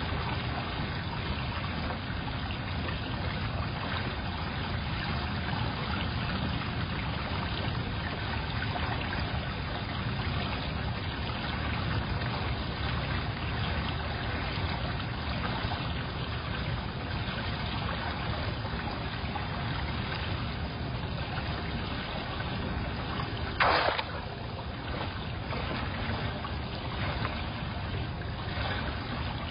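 A steady hiss of noise, with one short, sharp sound about 24 seconds in.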